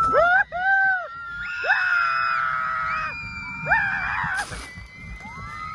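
Riders on a boat water ride screaming, several high voices with long held and gliding cries one after another, with a brief hiss about four and a half seconds in.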